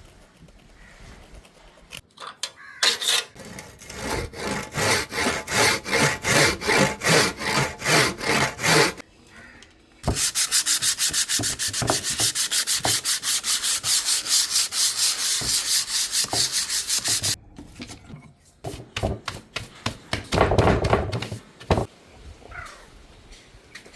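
Sandpaper rubbed back and forth over wood in steady strokes: about two strokes a second at first, then a faster, continuous run for several seconds, then a few uneven strokes near the end.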